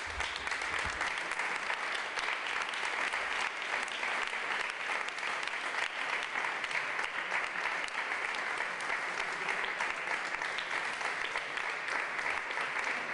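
Audience applauding: many people clapping steadily at an even level throughout.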